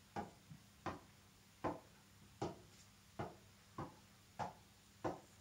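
Tennis ball bounced straight up off a racket's strings in a steady keep-up, a sharp short pock about every three-quarters of a second, eight hits in a row.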